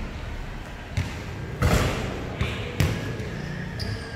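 Basketball bouncing on a concrete court: three thuds about a second apart, the middle one loudest.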